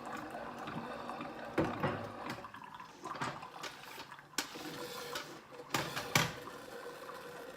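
Coffee streaming into a large mug, with a few sharp clicks and knocks of the mug and coffee things being handled.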